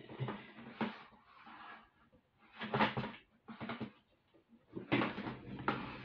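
Rummaging through stored beading supplies: a run of irregular rustles and clatters as bags and containers are moved about, loudest about halfway and near the end.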